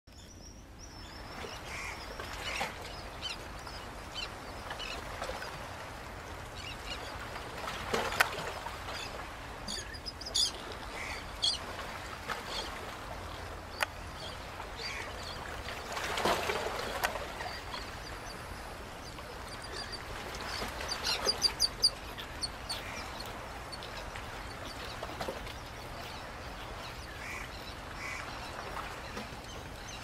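Black-winged stilts calling: scattered short, sharp notes, with two quick runs of rapid notes about a third and two thirds of the way through, over a steady background rush.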